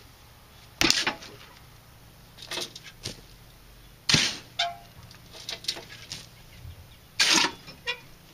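Clay gravel being shoveled from a cart onto bare soil: three loud, short crunching shovel strokes about three seconds apart, with fainter knocks in between.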